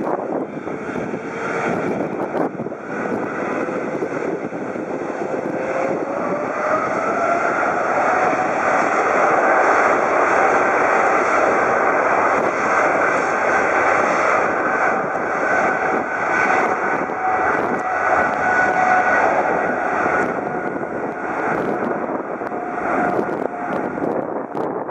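Boeing 777-300ER's GE90-115B turbofan engines at takeoff power: a loud jet rumble with a whine that rises about six seconds in as the engines spool up, then holds steady.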